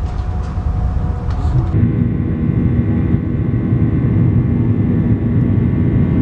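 Jet airliner in flight heard from inside the cabin: a steady low rumble of engine and airflow noise with several steady hums, starting abruptly about two seconds in. Before that, cabin noise with faint voices.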